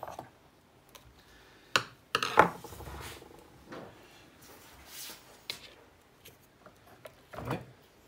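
A screwdriver scraping and prying packed dust out of the fan inlet of a small Hoover vacuum cleaner's motor, in a string of short scratches and knocks, the loudest about two seconds in. The fan, which should spin freely, is clogged with dust.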